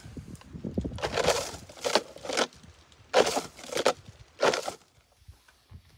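A run of short crunching, rustling noises, six or seven in a row over about four seconds.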